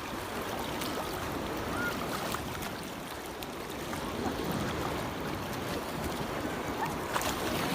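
Steady wash of sea water with wind on the microphone, and faint distant voices now and then.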